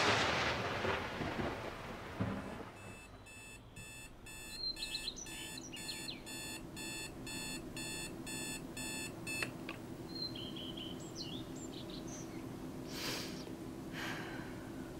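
Electronic alarm clock beeping in a fast repeating pattern, about two beeps a second, for several seconds before it cuts off. A rumble dies away over the first two seconds, and near the end there are a couple of short rustles of bedding.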